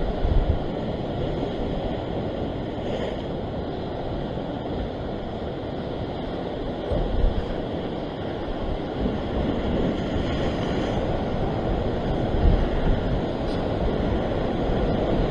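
Ocean surf breaking and washing over a rock shelf, a steady rushing, with wind buffeting the microphone in low rumbles.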